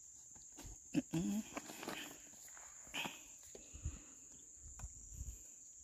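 Crickets chirring in a steady high drone. A few soft knocks and a brief murmur of a voice come about a second in, with another knock about three seconds in.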